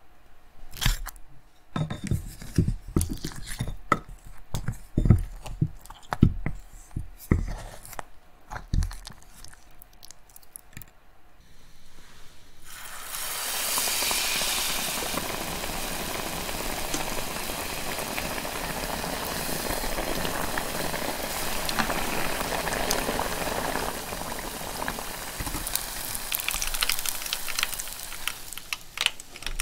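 Metal tongs knocking and scraping in a glass dish of thick batter as a banana is coated, a series of separate taps. About twelve seconds in, a battered banana starts sizzling steadily in hot deep-frying oil, with a few light taps of chopsticks near the end.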